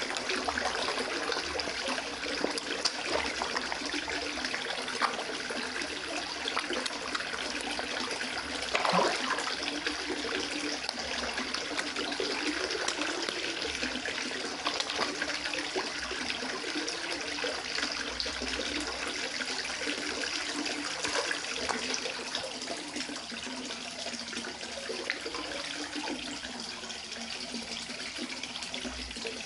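Koi splashing and slurping at the water's surface as they crowd around a feeding hand, over the steady splash of water running into the pond. One louder splash comes about nine seconds in.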